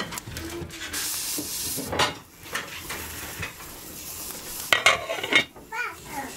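Dried apricot pieces sizzling in a frying pan on a stove top. About five seconds in comes a loud clatter of metal on metal as an aluminium lid is set on the pan.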